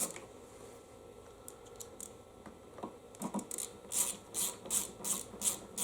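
Small bolts being started by hand into the mower engine's parts: light metal scratching and rubbing, becoming a run of short scraping strokes about three a second in the second half as the bolts are turned.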